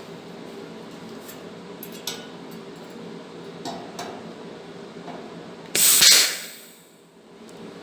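A TIG welding torch striking a short tack: a loud hiss about six seconds in that fades away within a second. A few light metallic clicks come before it, over a steady low workshop hum.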